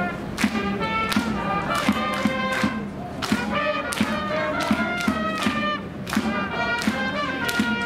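Music: a horn-like melody of held notes over a steady drum beat, about two beats a second.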